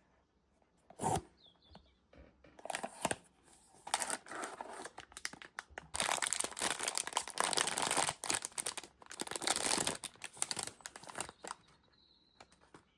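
Plastic blind-box packaging crinkling and tearing as it is unwrapped by hand, after a single sharp click about a second in; the crinkling is densest in the middle stretch and dies away near the end.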